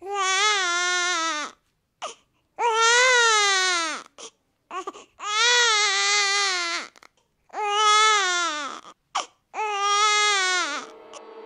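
Newborn baby crying: five long cries, each about a second and a half, with short catching breaths between them.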